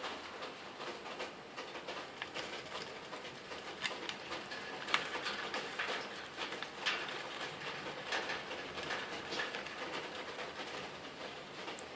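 Lovebird shredding paper with its beak: irregular soft crackling and rustling, with a few louder sharp rips. The strip-cutting is typical nest-building behaviour of female lovebirds.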